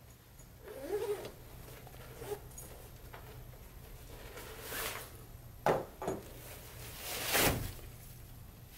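Collapsible photo reflector handled and twisted to fold: a series of crinkling, rustling swishes from its reflective fabric and flexing wire rim, with a sharp one about two-thirds through and the loudest near the end.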